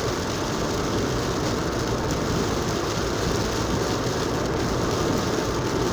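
Steady road noise inside a moving car on a wet highway: tyre hiss and engine drone with no change in level.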